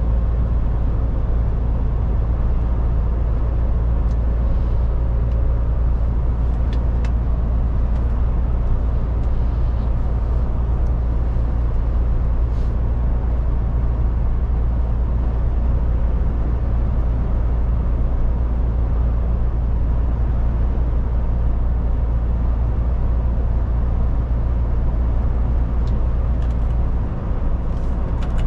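MAN TGX 18.440 truck driving at a steady pace: an even engine drone with tyre and wind noise, unchanging throughout.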